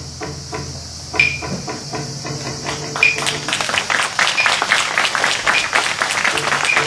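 Wooden hyoshigi clappers struck to open a kabuki curtain. A few ringing claps come a second or more apart, then about three seconds in a rapid run of strikes begins and speeds up.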